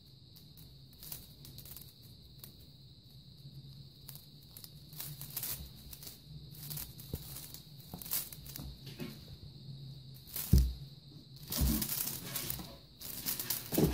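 A Russian Blue kitten scuffling as it pounces on a feather wand toy: feathers rustling and claws scratching on a bobbled chenille mat in short irregular scrapes. A sharp thump about three-quarters of the way through, then louder flurries of scuffling near the end, over a faint steady hum.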